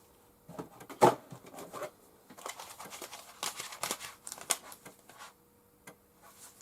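Plastic 3.5-inch floppy disks being handled and stacked: irregular light clicks and clatters, with one louder clack about a second in.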